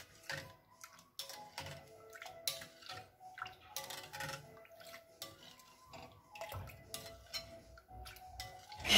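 A metal spoon stirring milk and sugar in a glass bowl, giving irregular light clinks and scrapes against the glass, over soft background music.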